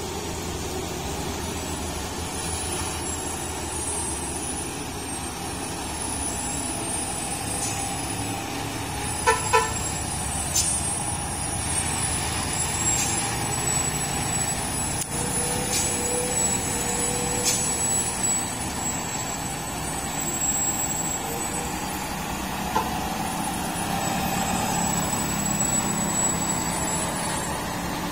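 Heavy diesel truck engine running under load as the UD Quester tractor unit pulls a loaded lowboy trailer slowly uphill, getting a little louder as it approaches. Two short horn toots about nine seconds in.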